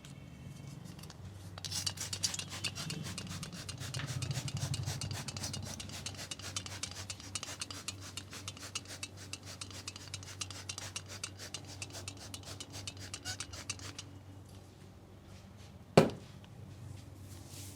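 Hands rubbing and scratching vigorously through hair and scalp in fast, dense strokes during a head massage. The rubbing stops, and a couple of seconds later comes a single sharp, loud snap.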